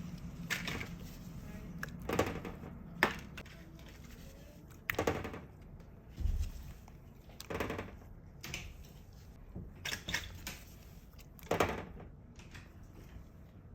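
Scattered knocks and clicks of kitchen utensils and dishes, several sharp strikes a second or two apart over a low hum.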